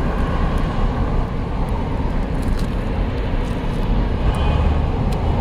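Steady rumble of road traffic, with a few faint ticks partway through.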